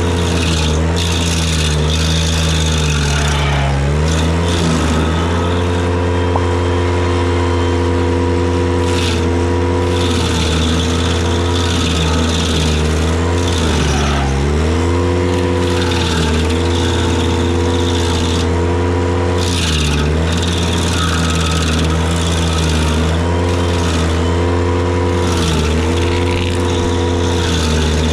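Ventrac tractor engine running at high throttle, driving a Ventrac KC220 stump grinder attachment as it cuts into a stump. The engine note sags briefly several times as the cutter wheel bites in, then picks back up, with grinding noise over it.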